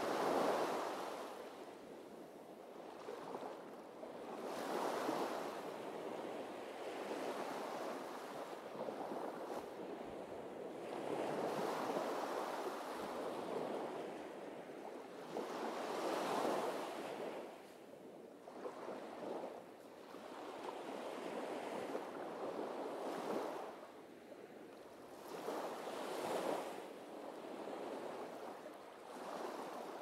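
Small waves breaking and washing up a sandy beach, the surf swelling and easing every few seconds.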